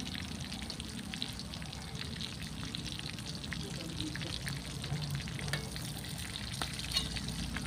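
Whole fish frying in hot oil in a wok over a wood fire: a steady sizzle with many small pops and crackles. There are a few sharper clicks near the end.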